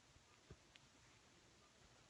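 Near silence: room tone, with one faint soft click about half a second in.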